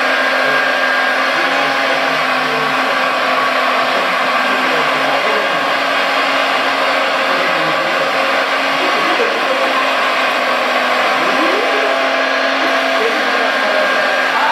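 Scale RC Liebherr R956 hydraulic excavator running with its sound module, a steady motor-like drone carrying a few held tones. Pitches slide up and down now and then as the boom and bucket move.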